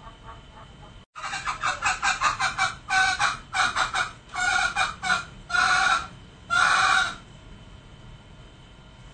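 Male green junglefowl calling: a fast run of short clucking notes begins about a second in, followed by a string of longer, louder calls, the last ending about seven seconds in.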